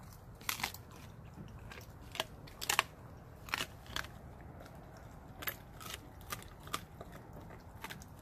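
Blue Bay Shepherd dog crunching raw chicken feet: about a dozen sharp, irregular cracks of small bones between its teeth, the loudest a little under three seconds in.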